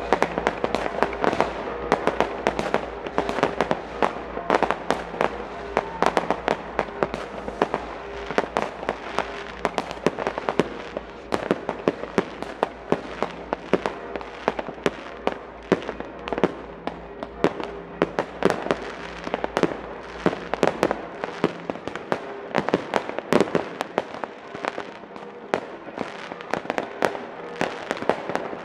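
Fireworks and firecrackers going off in a dense, continuous barrage: sharp bangs and crackling reports several times a second, with no let-up.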